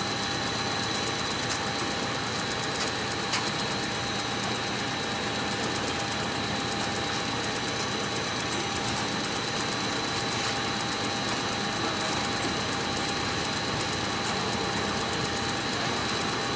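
FTPEG 1000 compound bubble film machine running steadily: a continuous mechanical whir with two steady tones, one a high whine, and a few faint clicks.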